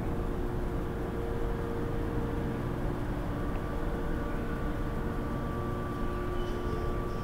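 Steady hum of an electric train car's onboard equipment and rooftop air conditioners, with a few steady tones over a low rumble.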